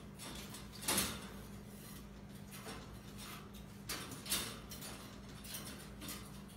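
Wire cage rattling and clinking as two young raccoons climb its bars and wrestle on its shelves: a few separate knocks and rattles, the loudest about a second in, more near the end.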